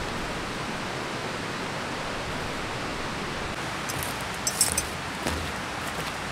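Steady rushing outdoor background noise, with a brief cluster of sharp, light clicks about four and a half seconds in.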